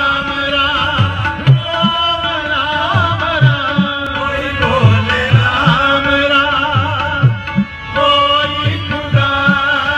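Live Sikh shabad kirtan: tabla and harmonium playing a devotional hymn. The tabla's bass drum strikes in a regular rhythm with strokes that bend in pitch, under a wavering melody line and steady held reed tones.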